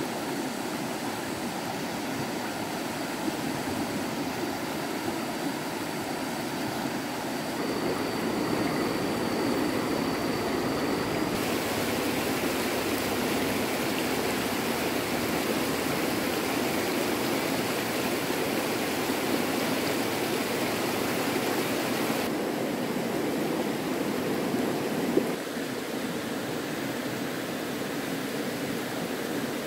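Steady rush of flowing stream water, its tone shifting abruptly a few times.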